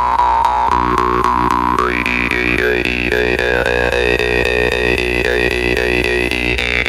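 Yakut khomus (jaw harp), the 'Bear's Fang' model, plucked in a rapid, even rhythm over its steady drone. A bright overtone melody shaped by the mouth rides above the drone: it jumps higher about two seconds in, wavers there, and drops back near the end.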